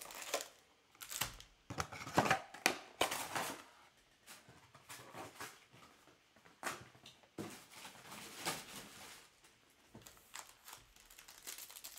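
Trading cards and pack wrappers being handled during a box break: irregular rustling and short clicks as packs are opened and cards are shuffled through.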